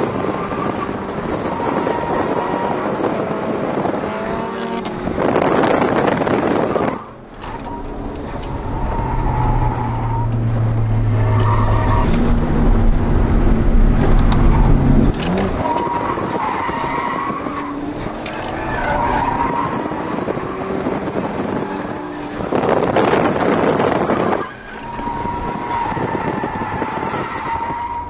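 Inside the cabin of a turbocharged drift car, the engine is held high in the revs while the tyres squeal and scrub through a run of slides. Two louder surges of tyre and engine noise come about five seconds in and again near the end, each cutting off abruptly as the throttle comes off.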